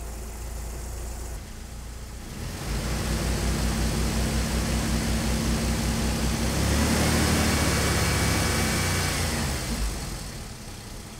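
Car engine idling at about 870 rpm, then revved and held at about 1,750–1,800 rpm. It steps up about two and a half seconds in and again about six and a half seconds in, then drops back toward idle near the end.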